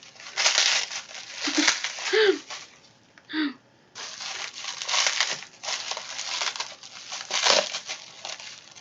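Packaging being handled and unwrapped, crinkling and rustling in repeated bursts, with a brief pause about three seconds in. A few short murmured vocal sounds come in the first half.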